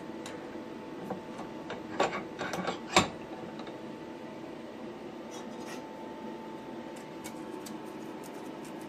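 A steel circular-saw blade is worked into the slotted steel pipe nipple, making metal-on-metal scraping and clinking. There is a cluster of clanks about two to three seconds in, the sharpest near the third second, then a few light ticks later on. It is a tight fit.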